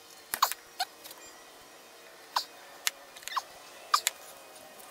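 Irregular sharp clicks and short squeaks, about seven in the space of a few seconds, as parts are pressed and worked by hand into a brake master cylinder's bore.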